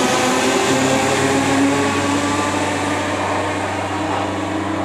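Electric multiple-unit train running past the platform: a motor whine rising slightly in pitch over the first couple of seconds, settling into a steady hum that eases off a little near the end.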